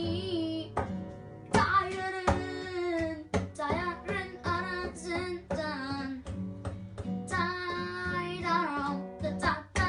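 A boy singing a song in Turkish while strumming a classical guitar, the chords struck along with the melody.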